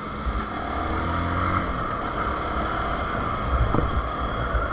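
Dafra NH 190 motorcycle running while being ridden, with a steady rush of wind over the microphone; its engine note glides in pitch in the first second or so. There is a single short click a little before the end.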